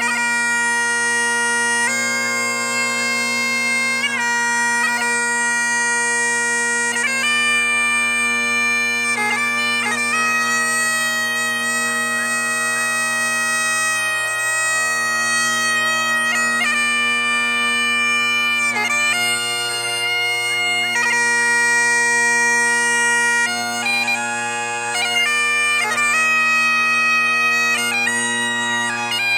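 Bagpipes playing a tune: a steady low drone held throughout under a melody that steps between held notes with quick ornaments.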